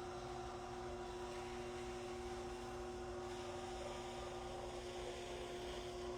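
Steady electrical hum, several even tones held without change.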